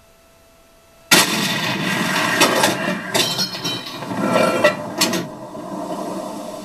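Sound effect from an RC Tiger I tank's TK22 sound card, played through its small speaker. It starts suddenly with a loud blast about a second in, then comes several seconds of noisy rumble with a few sharp metallic clanks, and fades out near the end.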